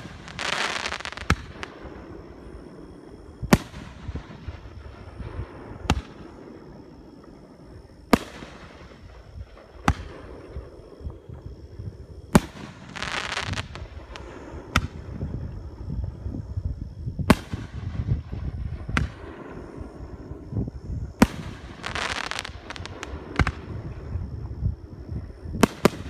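Aerial firework shells bursting with a sharp bang every two to three seconds, about a dozen in all. Several bursts are followed by about a second of crackling from glittering stars.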